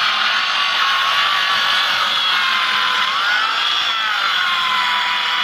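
Electric motor of a small wood-splitting machine running with a steady high whine, its pitch rising and falling briefly about three seconds in.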